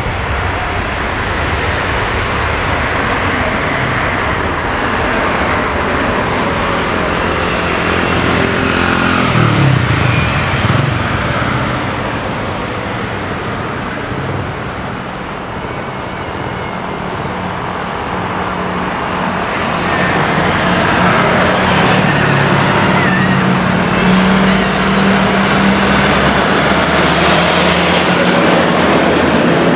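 Steady road-traffic noise, with a vehicle passing about ten seconds in. A low steady engine hum comes in about twenty seconds in and stays.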